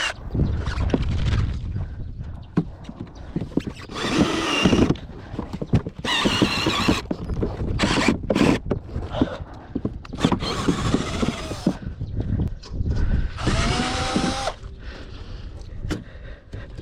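A hand-held power tool running in three short bursts of about a second each, the last one winding down as it stops, among scattered knocks and clatter of metal parts.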